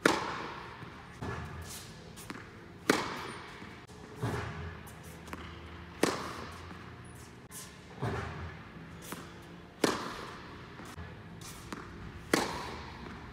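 Tennis balls being struck with a racquet in steady groundstrokes, about eight sharp hits spaced one and a half to two seconds apart, with lighter knocks of balls bouncing in between. Each hit rings out in a large indoor tennis hall.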